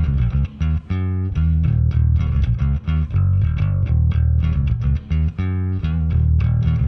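Electric bass played through a vintage MTI-era Ampeg SVT tube amp and 8x10 cabinet, on channel 2 with the preamp volume all the way up: a riff of quick low notes broken by short pauses, with a couple of longer held notes.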